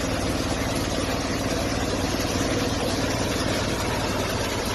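Engine of a grain harvesting machine running steadily.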